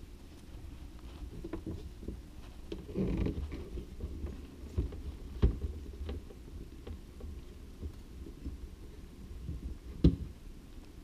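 Scattered clicks and knocks of plastic reverse osmosis filter cartridges being gripped and worked loose from their housing, over a low rumbling handling noise, with two sharper knocks about five and a half seconds in and near the end.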